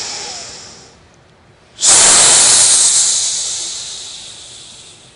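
Deep breathing heard close on the microphone, the preparatory breaths of a qigong breathing exercise: a short breath fading out at the start, then a long, strong breath that starts suddenly about two seconds in and slowly dies away.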